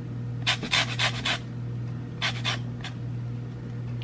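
Orange peel being zested on a flat metal hand grater: quick rasping strokes, about six in a first run and a few more after a short pause, over a steady low hum.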